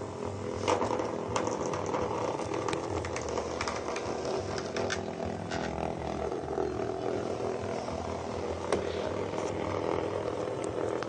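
Small vibrating bug toys, cheap Hexbug Nano knock-offs, buzzing steadily as they skitter about inside a plastic laundry basket. Scattered sharp ticks and knocks sound against the plastic.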